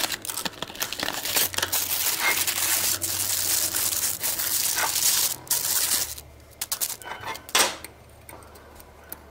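Packaging crinkling and tearing as it is handled and unwrapped for about six seconds, then a few light clicks of small metal parts.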